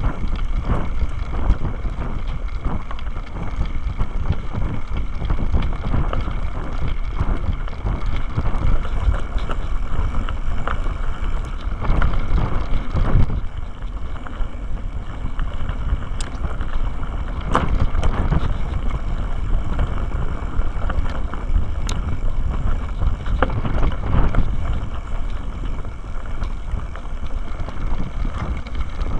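Mountain bike riding down a rough dirt singletrack, heard from a camera mounted on the bike: a constant rumble of tyres and frame over the ground with frequent knocks and rattles from bumps, and wind buffeting the microphone.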